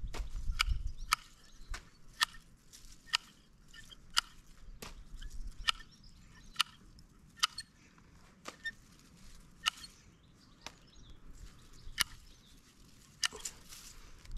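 Hand garden shears snipping stems: about twenty sharp snips, roughly two a second at first and more spaced out after the middle.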